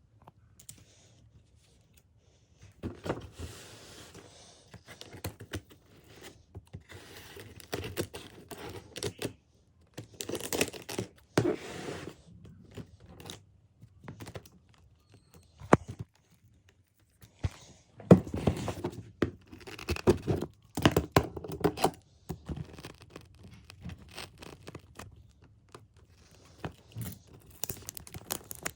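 A package being handled and torn open, in irregular bursts of tearing, scraping and crinkling with occasional knocks and clicks.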